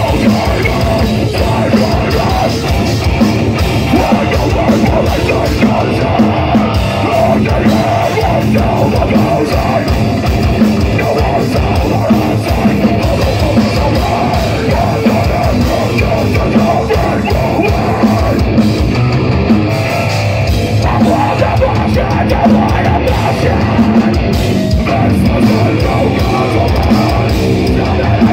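A deathcore band playing live and loud: distorted electric guitars, bass and drums, with the vocalist screaming over them.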